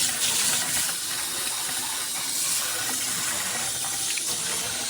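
Water running steadily through a hose-and-shower-head sprayer attached to a faucet, spraying with a steady hiss.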